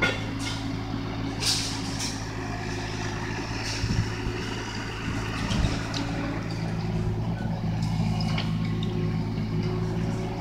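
Doosan mini excavator's diesel engine running steadily under load as the hydraulic boom digs and lifts a bucket of soil, with a few short knocks, hisses and scrapes from the arm and bucket working the ground.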